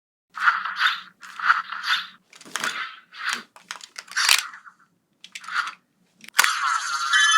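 Crinkling, crunching packaging being handled in a series of short bursts. About six seconds in, a sharp click is followed by music with ringing, chiming tones.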